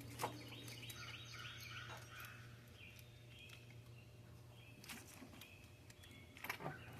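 Faint bird chirping, repeated short calls in the background, with a few sharp light clicks and a steady low hum underneath.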